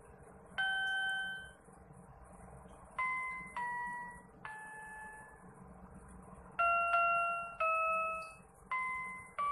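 61-key electronic keyboard playing a slow melody of single notes, about eight of them with pauses between, each struck and fading away over about a second.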